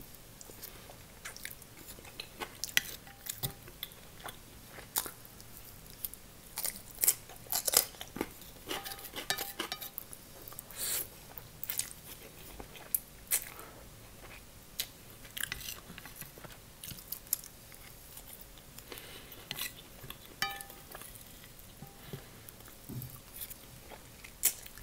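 A person eating glass noodles with chopsticks, slurping the strands in and chewing, with many irregular short mouth clicks and smacks.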